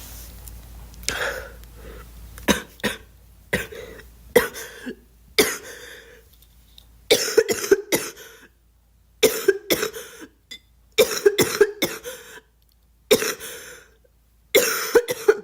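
A girl coughing over and over: single coughs about a second apart at first, then, from about seven seconds in, fits of several coughs in quick succession with short pauses between.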